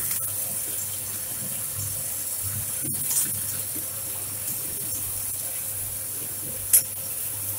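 Green coffee beans pouring from a plastic bag into a coffee roaster's stainless-steel hopper: a steady rattling hiss like running water, over a low steady hum. A brief sharp click sounds near the end.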